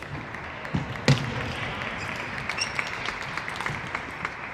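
A table tennis ball knocking sharply a couple of times about a second in, then light scattered applause from a small crowd.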